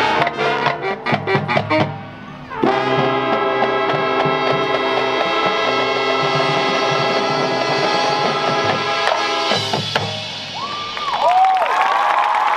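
Marching band's brass and percussion playing a run of short accented hits, then a full-band chord held for about seven seconds and cut off sharply: the closing chord of the show. Near the end the crowd breaks into whoops and cheering.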